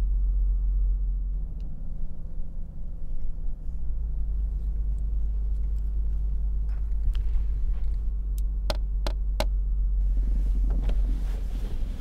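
Steady low rumble of a car's idling engine heard from inside the cabin. About nine seconds in come three sharp clicks in quick succession.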